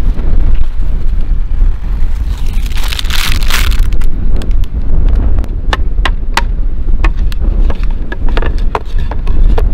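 Wind buffeting the microphone with a heavy low rumble, over sharp crinkles and clicks of plastic food packaging being handled, with a longer rustle about three seconds in.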